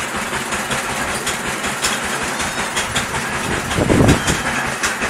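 Well-drilling rig running, with a steady mechanical rattle and rapid clicking, and a louder low thump about four seconds in.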